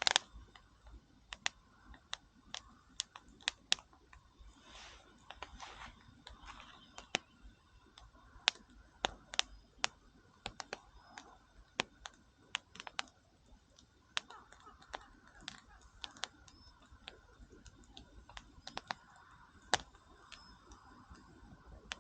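Wood campfire crackling: sharp, irregular pops and snaps, several a second, some much louder than others, over a faint steady hiss.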